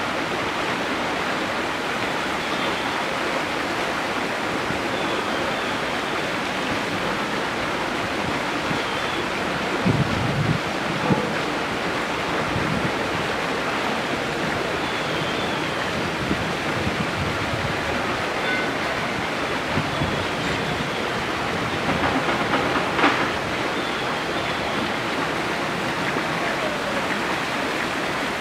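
Steady rush of running water. A couple of brief louder bumps come about ten seconds in, and a sharp knock near the end.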